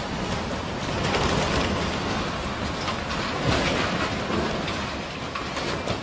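Strong storm wind and heavy rain, a loud steady rushing noise with many crackles and small surges in level.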